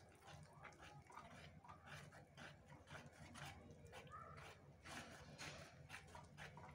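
Faint, repeated scraping strokes of a spatula stirring wet cake batter in a plastic bowl.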